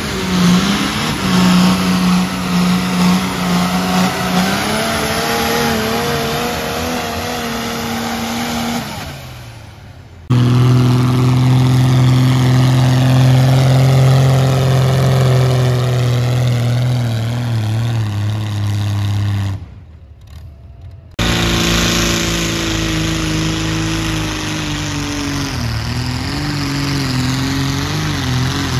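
Pulling tractors' engines running hard under load as they drag a weight-transfer sled down the track, in three separate runs. The sound drops out abruptly twice, at about ten and twenty seconds in. The engine note holds fairly steady, with slow rises and falls in pitch.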